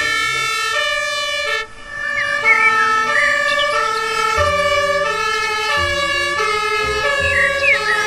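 Two-tone siren of German fire engines, alternating steadily between a high and a low pitch, with a brief drop about two seconds in.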